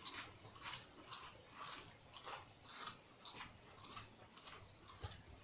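Footsteps of someone walking at a steady pace, about two steps a second.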